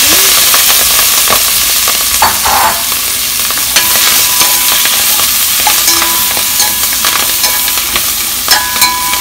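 Halved Brussels sprouts sizzling loudly in hot butter and oil in a ceramic-coated pot, the sizzle slowly easing. A metal spoon scrapes and clicks against the pot as they are stirred.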